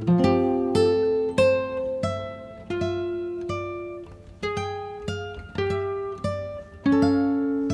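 Background music: a plucked acoustic guitar picking single notes and chords, each note starting sharply and ringing out as it fades.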